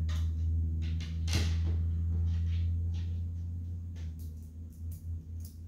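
Light clicks and knocks from a steel audio-streamer case and its cover being handled, one about a second and a half in and several more near the end, over a steady low hum that fades.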